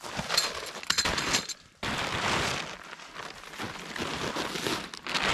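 Lightweight tent fabric being flung out and shaken open, rustling and flapping with quick sharp snaps, a brief pause about two seconds in, then steady rustling as it is spread out.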